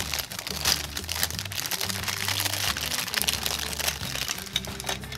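Thin clear plastic wrap crinkling and rustling as hands peel it off plastic toy parts on a sprue, in quick irregular crackles, over background music with a steady low beat.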